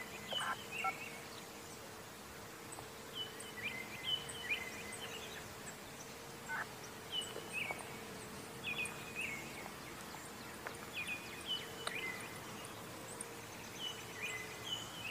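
A songbird singing a short phrase again and again, roughly every two seconds, each phrase stepping down in pitch. Underneath is a faint steady tone that fades out near the end.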